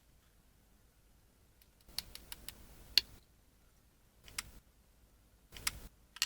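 Light clicks, taps and rustling of small plastic toy pieces being handled, coming in a few short clusters after about two seconds of near silence, with one sharper click about three seconds in.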